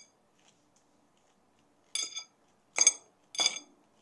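Metal fork clinking against the salad bowl three times in the second half, each strike ringing briefly, as salad is speared from the bowl.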